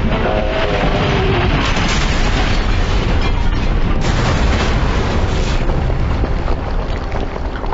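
Dramatized bomb explosion: a loud, sustained blast rumble with a few sharper cracks along the way.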